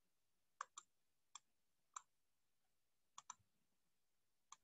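Computer mouse button clicked about seven times, faint and sharp, some clicks in quick pairs.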